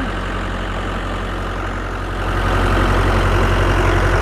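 Mahindra 4540 tractor's diesel engine running as the tractor moves off in low range, second gear. About two seconds in the engine gets louder and a higher whine joins it.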